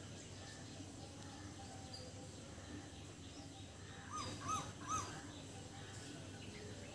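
Three short, arched animal calls in quick succession, over faint steady outdoor background noise.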